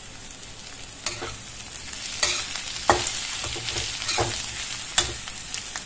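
Metal spatula stirring and scraping a masala of onions, tomatoes and spice powders in a metal kadai, knocking against the pan several times over a steady sizzle of frying on low heat.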